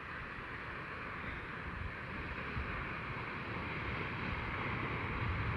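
Wind blowing through a storm, with uneven low buffeting on the microphone, growing slowly louder.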